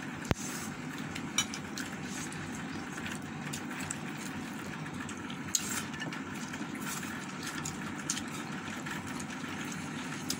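A steady low hum, with a few short clicks and smacks of someone eating rice and chicken with their fingers and chewing.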